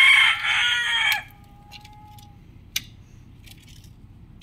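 Rooster crowing: one loud crow that ends about a second in, with a falling tail, followed by a single sharp click.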